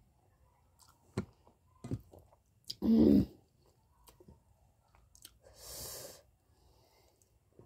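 Close-up eating sounds of a person chewing a mouthful of rice and fish curry, with a few small mouth clicks. A loud short burst comes about three seconds in, and a softer rushing noise near six seconds.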